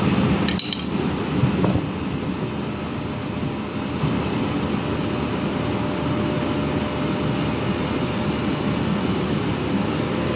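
Steady, loud rushing mechanical noise with a sharp metallic clink about half a second in and a fainter knock near two seconds.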